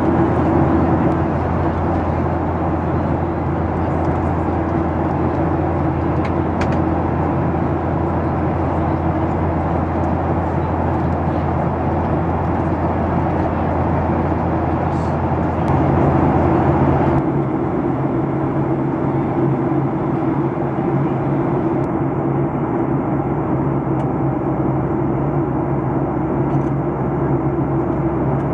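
Steady cabin noise inside a Boeing 737-800 in flight: the rush of airflow and the hum of its CFM56-7B engines. The low drone changes abruptly a little over halfway through.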